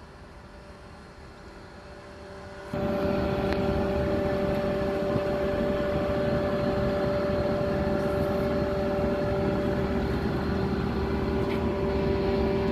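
Cargo ship's engine and machinery running with a steady hum and two steady tones; the sound jumps much louder about three seconds in.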